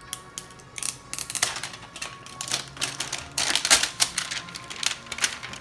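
Children handling and tearing into the wrapping of a giant toy surprise egg: a fast, irregular run of sharp crinkles, crackles and rips.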